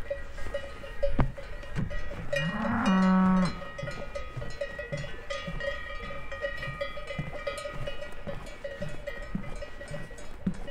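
Cowbells on grazing cattle clanking and ringing steadily, with a sharp clack about a second in. A cow moos once about two and a half seconds in: a call that rises, then holds level for about a second, the loudest sound here.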